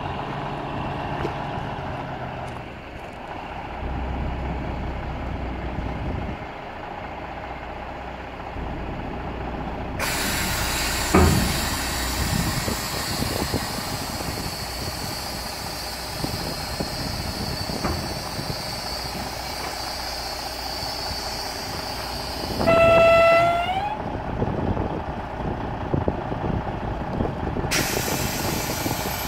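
1997 Peterbilt 379 dump truck running with its diesel idling while the raised dump bed is lowered. A steady hiss of air starts suddenly about a third of the way in, with a single knock soon after. A short horn toot of about a second, bending up in pitch at its end, comes about three-quarters of the way through.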